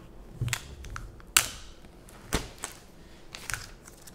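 Cardboard phone box being handled on a tabletop: a handful of sharp taps and clicks, the loudest about a second and a half in.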